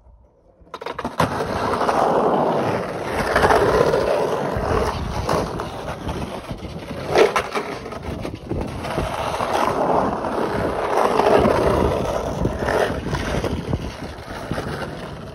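Skateboard wheels rolling on the smooth concrete of an empty pool bowl as the skater carves back and forth, starting about a second in. The rolling swells and fades with each carve, with a sharp clack about seven seconds in.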